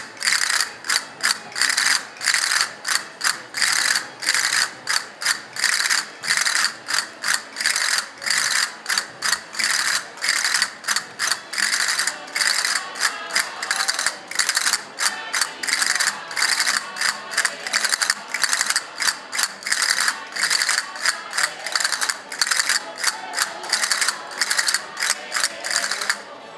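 Wooden hand percussion clacking in a fast, steady rhythm, several sharp strokes a second.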